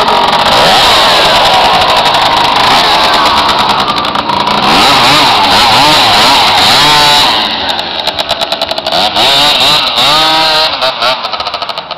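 Athena 80cc scooter engine revving as the scooter pulls away, its pitch rising and falling several times with the throttle. It gets quieter after the middle as it moves off.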